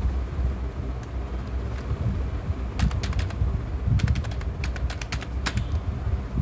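Computer keyboard keys clicking as a password is typed, in quick runs of keystrokes starting about halfway through, over a steady low hum.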